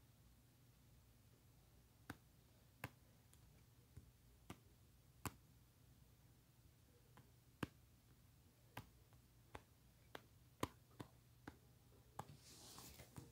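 Faint, sharp taps at irregular intervals, about one a second, of fingertips on a phone touchscreen while drawing, over a faint steady low hum. A brief soft rustle near the end.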